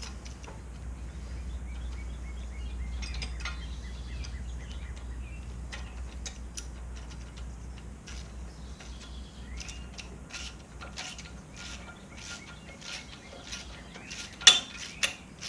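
Ratchet wrench clicking in short runs as the lock nut on the backhoe's bottom pivot-pin bolt is run down, with one louder sharp metal click near the end.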